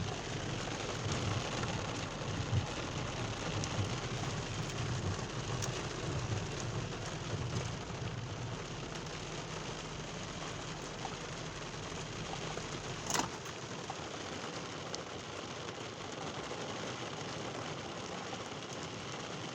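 Steady rain falling in a thunderstorm, with a low rumble of thunder through the first several seconds that fades away. One sharp click about two-thirds of the way through.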